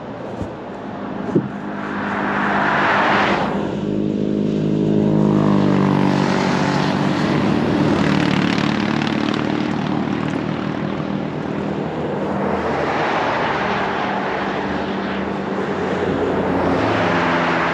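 Road traffic passing on a highway: several vehicles go by one after another, their tyre noise swelling and fading, with an engine hum that drops in pitch as one passes a few seconds in.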